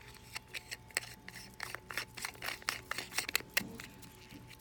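Light clicks and scraping from a gold-filled pocket watch and its case being handled, a quick run of small taps and rubs with a busier stretch in the middle.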